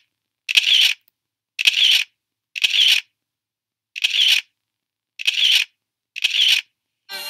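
Camera shutter sound effect, clicking six times at roughly one-second intervals, with dead silence between the clicks.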